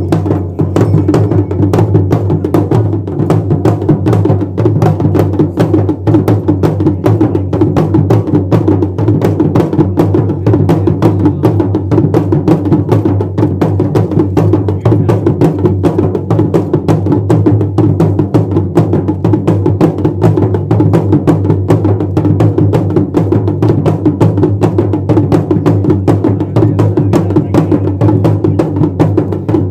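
Pahari dhol drums played in a fast, dense, unbroken rhythm, loud and with a deep booming low tone under the strokes.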